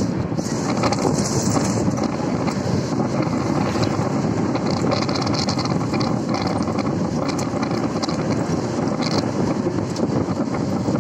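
Steady engine and road noise of a moving vehicle, heard from on board, with wind buffeting the microphone.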